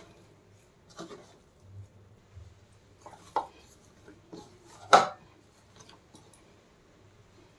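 Hand kneading a stiff whole-wheat flour and semolina dough in a plastic bowl: a few scattered soft thumps and knocks, the loudest about five seconds in.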